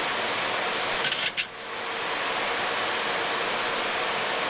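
Steady rushing air noise on the Boeing 737 flight deck on short final, with a faint steady hum under it. A couple of short clicks come about a second in, followed by a brief drop in the noise.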